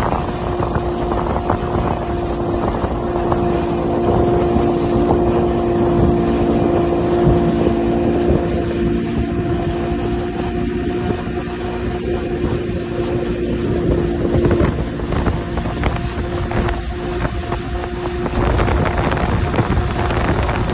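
A 60 hp outboard motor running at a steady cruising speed while it tows a banana boat, a constant drone over the rush of the wake. Wind buffets the microphone. The lower part of the engine drone thins out about fifteen seconds in.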